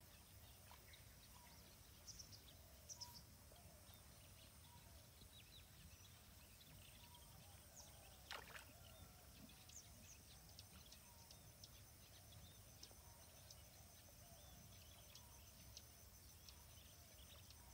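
Near silence: faint outdoor evening ambience with scattered faint bird chirps, the clearest a single falling call about eight seconds in.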